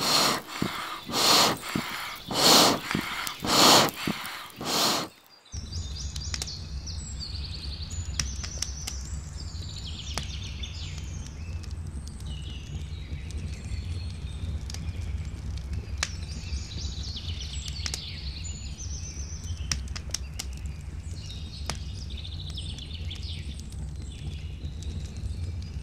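Five loud rushing puffs about a second apart, then songbirds singing over a steady low rumble, with occasional sharp crackles from a wood fire.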